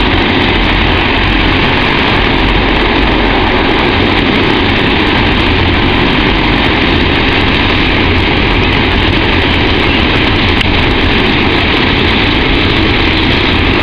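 U.S. Navy LCAC hovercraft running loud and steady on its air cushion: the gas turbines and twin ducted propellers make a constant, dense noise with a heavy low rumble.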